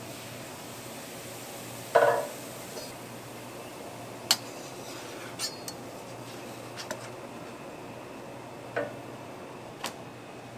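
Cooking utensils knocking and clinking against a crepe griddle and work surface as the crepe is spread, lifted and moved: one loud knock about two seconds in, then several lighter sharp metallic clicks, over a steady low hum.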